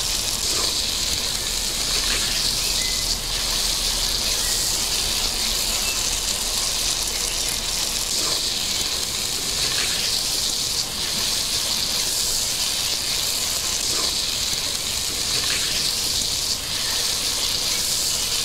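Country-chicken curry with coconut milk just added, sizzling and bubbling in a clay pot: a steady hiss.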